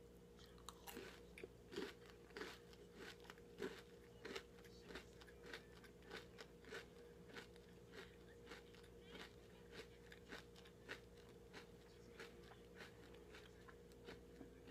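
Faint crunching as a bite of milk-chocolate crunch bar (a chocolate-coated puffed cereal bar) is chewed, crisp crunches about one and a half to two a second, louder in the first few seconds and softer toward the end.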